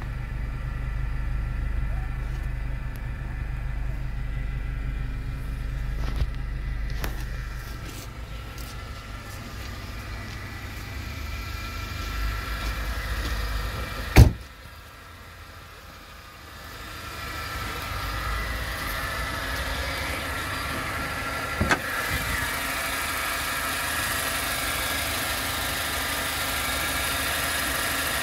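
Renault Sandero 1.6's four-cylinder petrol engine idling steadily. It is first a low hum heard from inside the cabin, then brighter and closer over the open engine bay. A single sharp knock comes about halfway through, and a smaller one a few seconds later.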